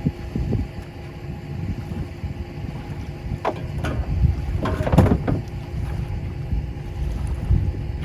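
A 1973 Evinrude 35 HP two-stroke outboard running as the boat moves along, with wind buffeting the microphone. A few sharp knocks or splashes come about three and a half to five seconds in.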